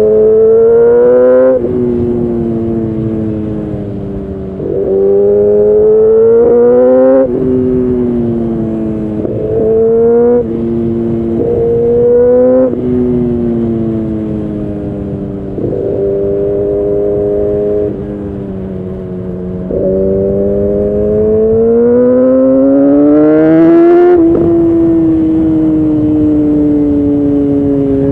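Kawasaki ZX10R inline-four sportbike through a decat Leo Vince exhaust, accelerating and shifting gears: the engine note climbs in pitch and drops sharply at each gear change, several times over, with a long rising pull near the end.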